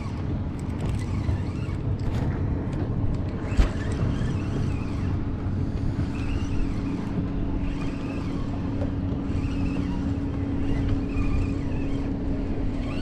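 Motorboat engine running with a steady drone, under a constant wash of wind and water noise.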